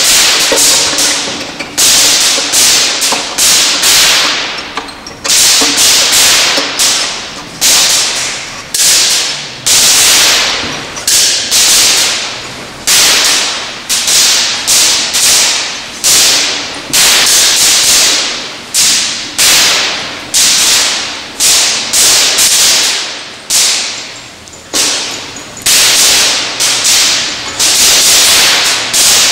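Violin played in hard, scratchy accented bow strokes: a quick series of sharp, noisy attacks, each dying away, about one to two a second, with faint pitched notes beneath.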